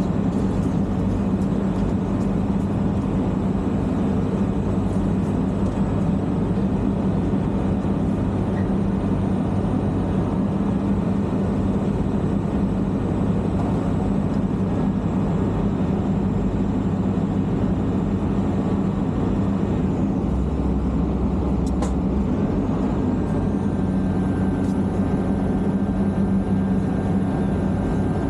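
An engine running steadily at a constant speed, a low even hum that neither revs nor changes.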